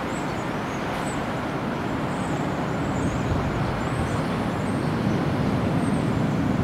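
Distant rumble of an Airbus A320-214's CFM56 jet engines as the airliner rolls out on the runway after touchdown, growing slightly louder, with wind buffeting the microphone.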